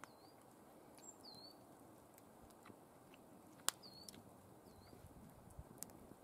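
Faint bird calls, several short high hooked chirps a second or so apart, over a quiet outdoor background. A few sharp clicks of a utensil against a plate, the loudest a little past halfway.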